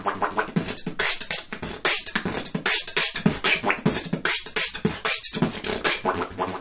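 Beatboxing: a mouth-made 'wob wob' bass, a pulsing buzz, gives way about half a second in to a fast beat of sharp, hissy snare- and hi-hat-like mouth sounds mixed with low bass notes.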